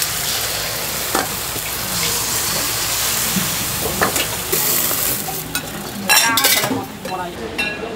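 Egg, meat and sauce sizzling in a hot wok over a gas flame, with a couple of sharp metal knocks. About six seconds in comes a burst of ringing clinks and clatter.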